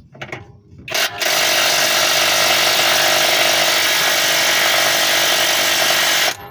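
Impact wrench (impact gun) running on a suspension bolt to loosen it for control-arm removal: a short burst about a second in, then about five seconds of steady running that stops abruptly near the end.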